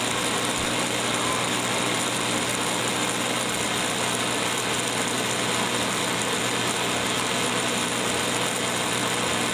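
Plasma torch (plasmatron) running continuously: a steady rushing hiss with a constant low hum underneath.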